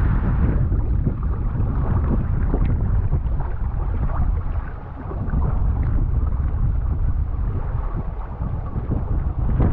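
Heavy wind rumble on the camera microphone, with water rushing and splashing along the hull of a Hobie Wave catamaran under sail. The noise eases briefly about five seconds in.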